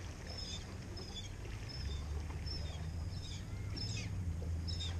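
Birds chirping in short, high, falling calls, about one or two a second, over a low steady rumble.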